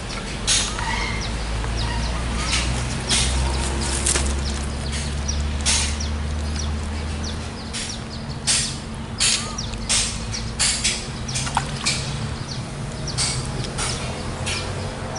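Outdoor ambience with birds chirping, many short irregular crackling or rustling noises, and a steady low rumble.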